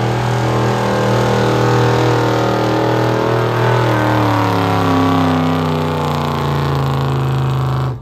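A pulling pickup truck's engine held at high revs under load, its pitch sliding down a little partway through; the sound breaks off abruptly near the end.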